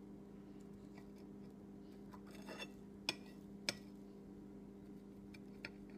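A thin metal utensil scraping through pancake batter in a frying pan, then two sharp clinks of metal against the pan a little past halfway, over a steady low hum.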